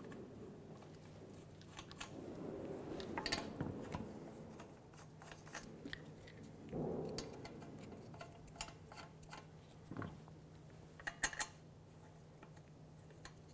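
Lug nuts being threaded by hand onto a car wheel's studs: scattered light metallic clicks and scrapes over a faint steady hum, with a sharper pair of clicks near the end.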